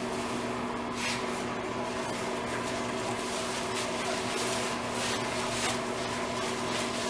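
Hands rubbing and scrubbing a wet Great Dane puppy's fur in a bathtub, with light swishes and drips of water, over a steady low hum.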